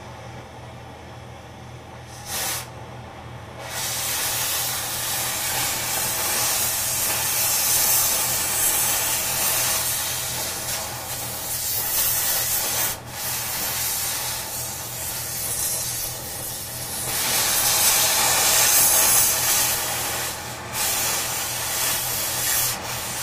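Oxy-fuel cutting torch cutting through steel: a softer hiss of the preheat flame, then about three and a half seconds in the cutting jet comes on and the torch hisses loudly and steadily as the cut goes through, dipping briefly twice.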